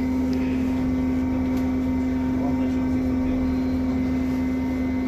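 Trolleybus interior: a steady electric hum at one constant pitch over even low running noise.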